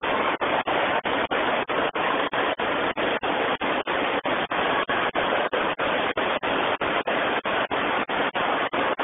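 Steady rushing of water from a FlowRider wave machine, a thin sheet of pumped water racing up the padded ride surface. The noise is cut by very short, evenly spaced dropouts, about four a second.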